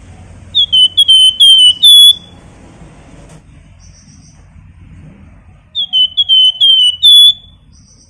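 Caged wergan jawa (Javan fulvetta) singing its whistled song: two loud phrases, each of about five quick, slightly falling notes with the last one held longest, about five seconds apart.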